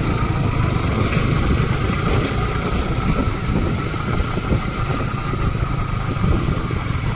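Yamaha R15 V3 motorcycle running at a steady speed while being ridden, its engine holding an even note under a constant rush of noise.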